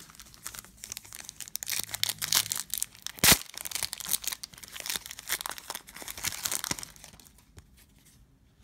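A trading card pack's wrapper being torn open and crinkled: a rapid run of crackles with one sharp snap a little over three seconds in. The crackling dies away about a second before the end.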